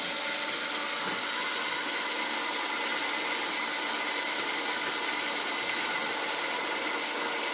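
1940s South Bend 13-inch lathe running steadily, its gearbox of square-cut gears driving the carriage on its slowest power feed toward a 15 thou cut.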